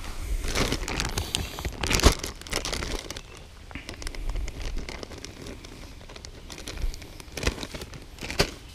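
Plastic zip-top bag crinkling and rustling in irregular bursts as it is handled and pinched shut, loudest about two seconds in.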